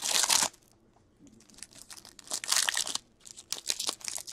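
Trading card pack wrappers being torn open and crinkled by hand, in several short irregular bursts.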